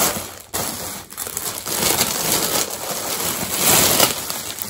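Clear plastic garment bag crinkling and rustling as a shirt is pulled out of it, with a couple of short breaks in the first second and a half.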